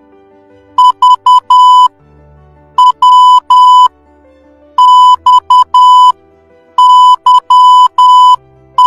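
Morse code beeps: a steady tone keyed into short and long elements, one letter about every two seconds, spelling V (dit-dit-dit-dah), W (dit-dah-dah), X (dah-dit-dit-dah), Y (dah-dit-dah-dah) and, near the end, Z (dah-dah-dit-dit). Faint background music lies beneath the beeps.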